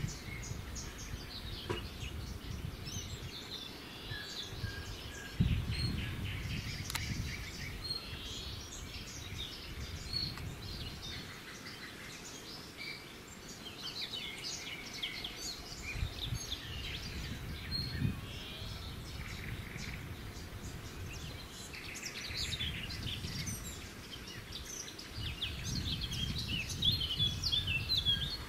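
Several small songbirds chirping and twittering, with many short calls and trills overlapping, over a low rumble that comes and goes.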